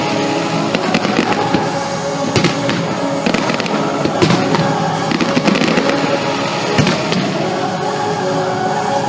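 A fireworks display: a string of sharp bangs and crackles from shells bursting, scattered irregularly, over music playing continuously.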